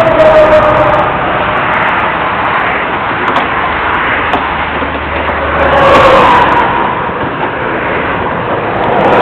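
Highway traffic passing close by at speed: a steady rush of tyre and engine noise, with vehicles going past and their whine dropping in pitch at the start and again about six seconds in, and another swell near the end.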